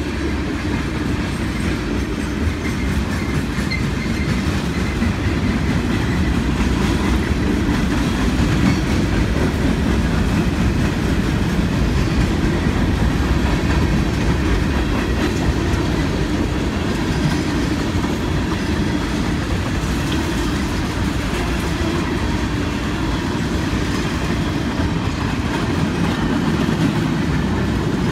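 Freight cars of a CSX freight train rolling steadily past on the track, a continuous noise of wheels on rails.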